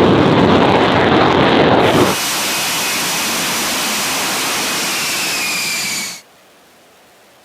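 F-35B fighter jet engine noise, heavy and loud for about two seconds. It then cuts abruptly to a steady jet hiss with a high whine that slowly falls in pitch. That stops suddenly about six seconds in, leaving only a faint hiss.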